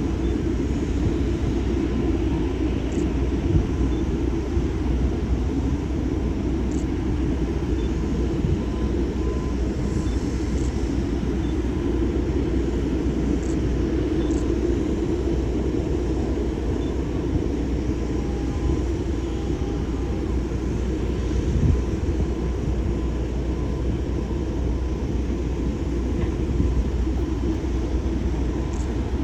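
Jet airliner engines running with a steady rumble.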